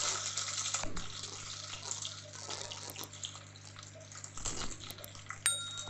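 Chopped onions and green chillies sizzling in hot oil in an open aluminium pressure cooker, the sizzle easing off over a few seconds. A brief metallic clink with a short ring comes near the end.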